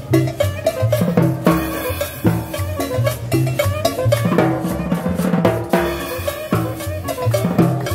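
Live street band playing Latin dance music: a drum kit with snare, timbales, bass drum and cymbal keeps a busy beat over congas, with a stepping bass line and a melody line above.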